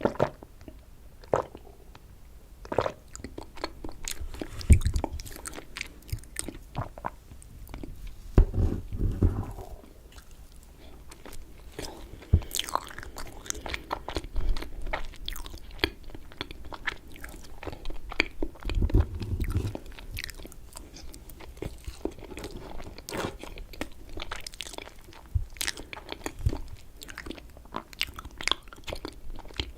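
Close-miked chewing of raspberry cheesecake: a steady run of small wet mouth clicks and smacks, with a few heavier, lower mouthfuls about 4 s, 9 s and 19 s in.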